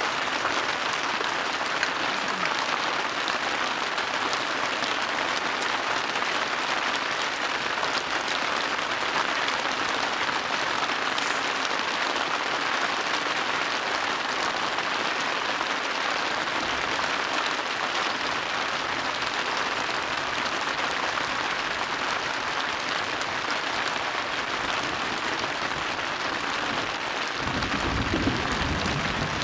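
Steady, even hiss of water, with a brief low rumble a couple of seconds before the end.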